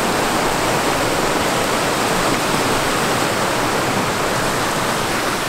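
Steady, even rushing noise that holds a constant level throughout.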